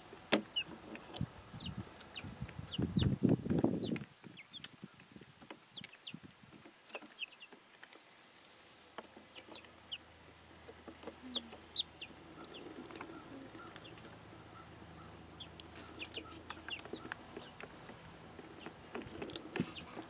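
Domestic hens clucking softly in short calls scattered throughout, with a louder burst of handling noise about three seconds in.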